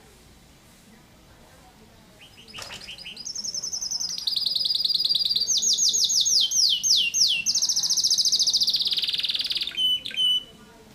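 Canary singing after about two seconds of quiet: a loud, high song of rapid trills and runs of quickly repeated falling notes, with a long, very fast trill near the end and a few short notes to close.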